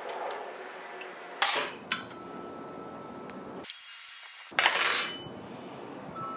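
Metal clanking: a sharp clank about a second and a half in, a smaller one just after, and a louder clatter near the middle, each leaving a brief metallic ring.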